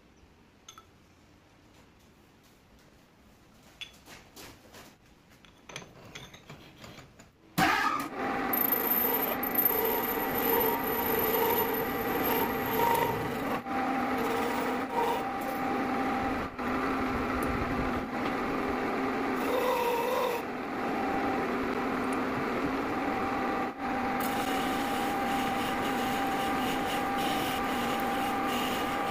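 Metal lathe switched on about seven and a half seconds in and running steadily with a few steady tones, its cutting tool turning a groove into a metal tube with a scraping, rubbing sound. Before it starts there are only a few faint handling clicks.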